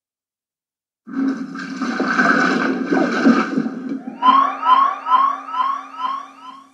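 Sound-effect files played back one after another. First, about a second in, comes a water effect: a dense, noisy rush of water for about three seconds. It is followed by a cartoon alarm effect: rapid rising electronic chirps, about three a second, over a steady low hum.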